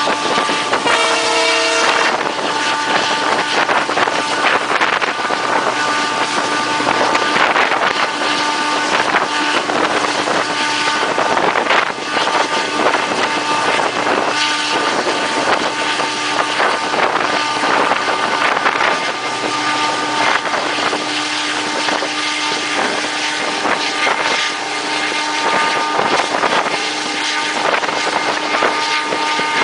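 WDP4 (EMD GT46PAC) diesel-electric locomotive working at full notch: a steady high whine of several held tones, typical of the EMD two-stroke engine's turbocharger under full load, over rushing wind and running noise. A short pitched tone sounds about a second in.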